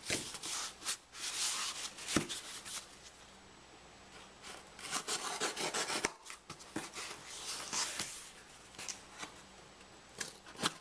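A taped cardboard box being handled and cut open with a knife: spells of scraping and rubbing on cardboard and packing tape, with a few sharp clicks and a quieter pause about three seconds in.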